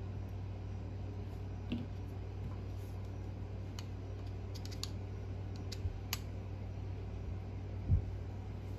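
Scattered light clicks and taps of small metal engine parts and tools being handled during clutch reassembly on a nitro engine, with a louder knock near the end, over a steady low hum.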